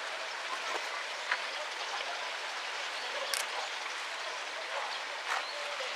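Steady rush of flowing water in a shallow rocky stream, with a few faint short chirps and one sharp click about three seconds in.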